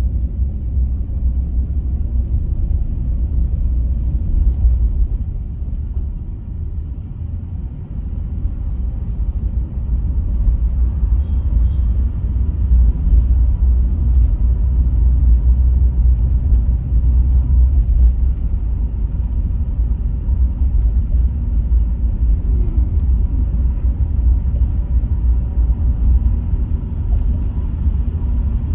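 Taxi driving, heard from inside the cabin: a steady low road rumble that eases off a few seconds in and builds up again.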